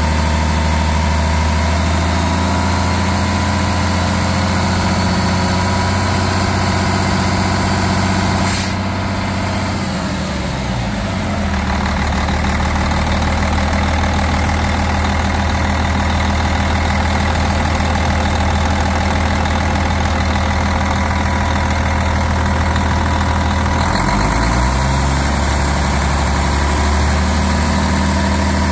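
Cummins ISM 10.8-litre inline-six diesel idling steadily. About ten seconds in, its speed eases down to a lower idle, and it rises again about five seconds before the end. A single sharp click comes just before the first drop.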